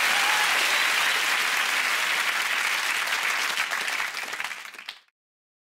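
Studio audience applauding steadily, thinning out about four seconds in and cutting off abruptly at about five seconds.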